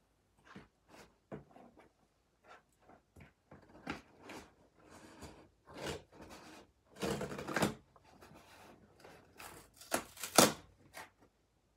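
Irregular scratching, rustling and clicking as hands pick at packing tape on a large cardboard toy box, with a longer, louder stretch about seven seconds in and the sharpest, loudest noise near the end.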